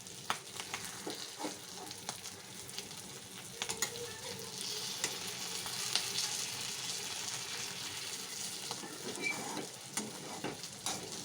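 Capsicum pieces in masala sizzling and frying in oil over high heat, with a spatula scraping and clicking against the pan as they are stirred and turned over.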